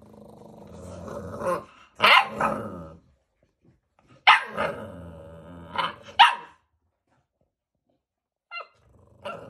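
American Bully puppies, about two months old, growling and yapping: a low growl breaks into sharp puppy barks, more growling and barks follow, then after a pause a short yip and another growl near the end.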